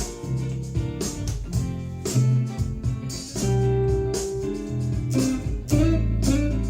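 Sterling JP50 electric guitar being played, a run of picked notes and chords with sharp attacks.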